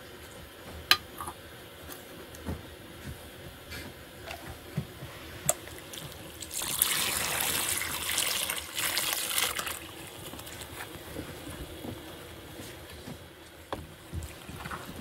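Water poured from a plastic jug into a plastic basin of flour, a steady splashing pour lasting about three seconds in the middle. Before it come a few small taps and knocks, and after it the faint rustle of hands mixing the flour and water into dough.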